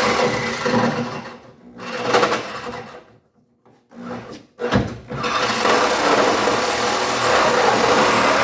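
A power saw cutting through car body metal, in short stop-start bursts at first, then a continuous cut from about halfway.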